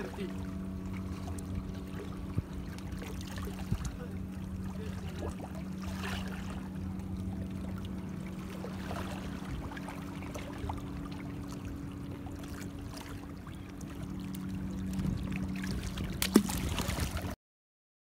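A steady low engine hum over light water noise, with a few sharp clicks; it cuts off suddenly near the end.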